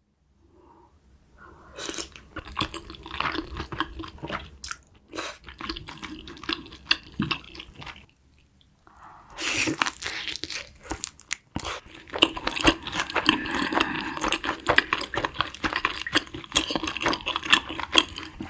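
Close-up crunchy chewing and biting of food, in two long stretches of dense crackling with a short pause about eight seconds in.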